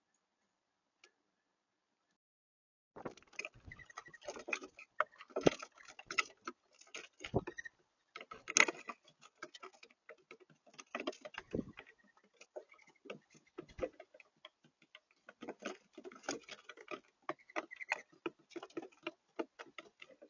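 Birds pecking and scrabbling at a feeder: rapid, irregular tapping and clicking of beaks and feet, with a few dull thumps, starting about three seconds in.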